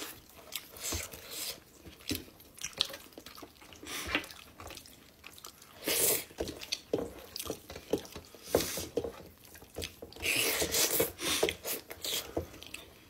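Close-up wet eating sounds: lip smacks, chewing and finger-sucking as soft finger-millet dhido and soupy greens are eaten by hand, in a string of short wet clicks and smacks, with a longer sucking sound about ten seconds in.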